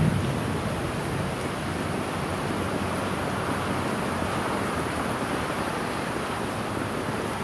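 Steady rain of a Florida thunderstorm, an even hiss with no thunder; a low thunder rumble dies away right at the start.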